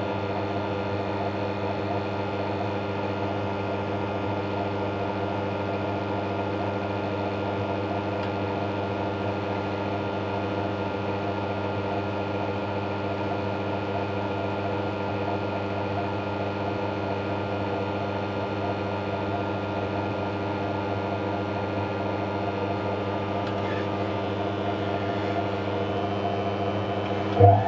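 Hotpoint Electronic 1000 Plus 9534 washing machine's drum motor spinning at a steady lower speed, a constant hum with a whine. Right at the end there is a sudden surge, and the motor pitch starts to rise as it speeds up.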